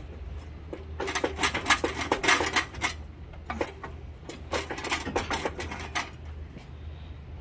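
Hoist chain clinking and rattling in two runs of quick metallic clicks, about a second in and again about three and a half seconds in, as an engine is lifted out of a car, over a steady low hum.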